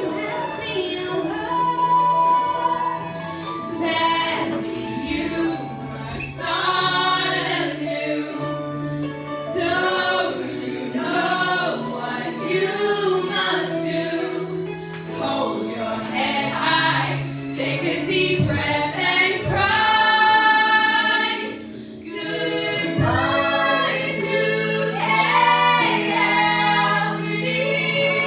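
A group of voices singing a song over musical accompaniment.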